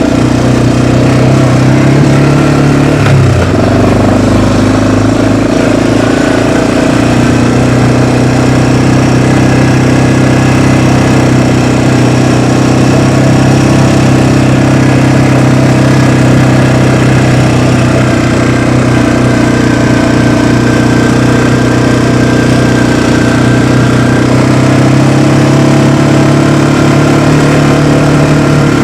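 Vehicle engine running steadily. Its pitch drops about three seconds in, as it slows, and comes back up a few seconds later.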